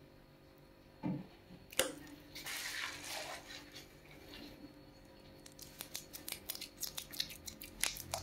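Metal spoon scooping and scraping raw beef meatball paste, with sharp clicks as it knocks against the pan, a dull thud about a second in, and a rapid run of clicks near the end.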